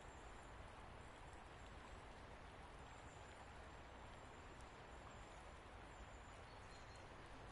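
Near silence: a faint steady hiss, with a few faint, brief high tones now and then.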